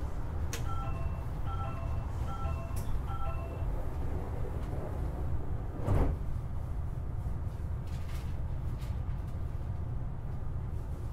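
Door chime aboard a Semboku Rapid Railway 7020 series train: a two-tone chime sounds four times, then the sliding doors shut with a thud about six seconds in. A steady low rumble from the stopped train runs underneath.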